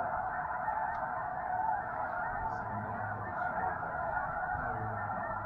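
Snow geese calling: a dense, unbroken chorus of many overlapping honks.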